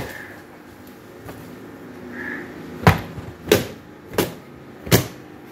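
Cloth being slapped to beat the dust out: four sharp thumps at an even pace, a little under a second apart, starting about three seconds in.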